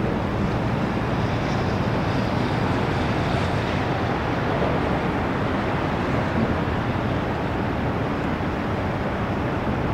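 Steady rushing noise of wind on the microphone over open harbour water, with no horn or other distinct event.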